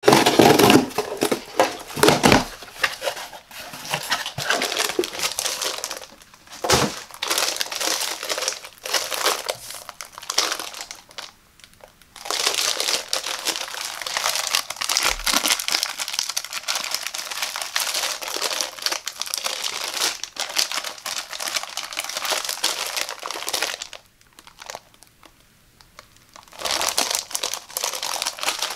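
A taped cardboard box being opened, then a thin clear plastic bag crinkling steadily as hands turn and handle the rolled shower mat inside it, pausing briefly twice.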